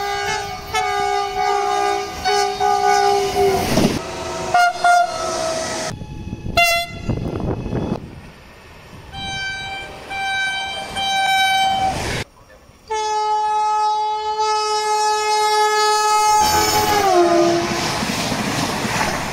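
Italian passenger trains sounding their horns: a string of horn blasts from several trains, then one long blast whose pitch drops as the train passes close by, followed by the rush of the passing train.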